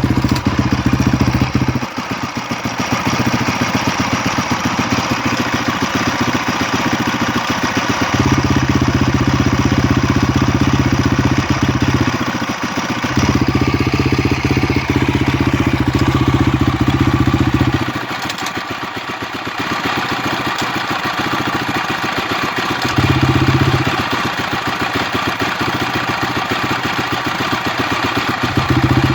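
Honda CRF250X single-cylinder four-stroke dirt bike engine running near idle. Every few seconds its deep steady note drops away into a quieter, rougher stretch full of fine ticking, then returns. This is the strange noise the owner is asking about, cause not known.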